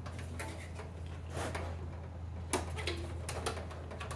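Sharp plastic clicks and knocks from the desktop computer case's front panel clips being worked loose by hand, about four of them, two in quick succession near the end, over a steady low hum.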